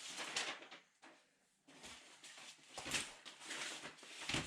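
Rustling and scraping from a wiring harness being handled, in short bursts with a brief lull, and a thump near the end.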